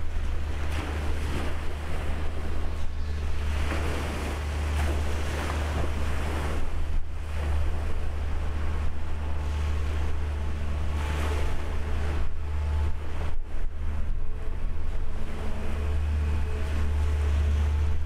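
Wind buffeting the microphone and water washing, over a low steady rumble and faint hum from the backhoe dredger's machinery across the water.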